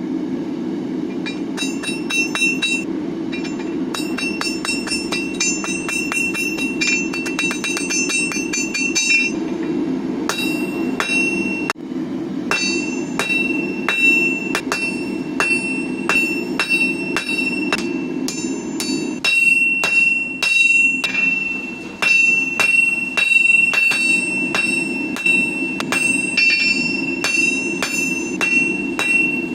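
Forging hammer striking hot steel on an anvil in quick runs of blows, each blow leaving a high, sustained anvil ring. A steady low rushing noise lies under the hammering, and the blows pause briefly about a third of the way in.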